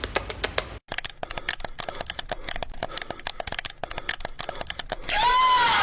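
Rapid, irregular clicking and tapping, then a cat meows once near the end, one arching call.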